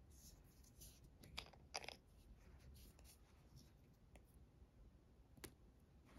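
Near silence with faint handling noises from a plastic cosmetics tube whose screw cap is being twisted off: a few soft clicks and rustles about a second and a half in, and one more short click near the end.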